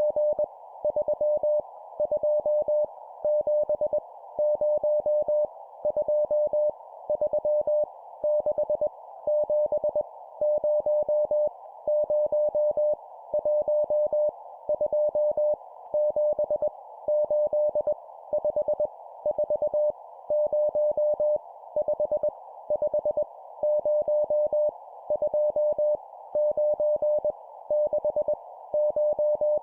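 Morse code (CW) sent at 20 words per minute as random numbers: a single steady beep of about 600 Hz keyed in dots and dashes, one digit about every second, over a steady hiss like a radio receiver's.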